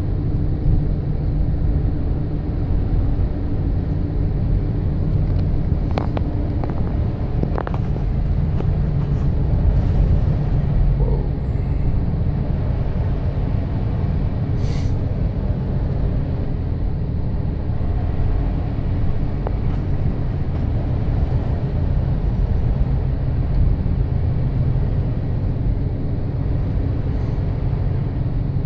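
Steady low road and engine drone heard inside the cabin of a vehicle driving along a snow-covered road. A few faint clicks come about six to eight seconds in and once more about fifteen seconds in.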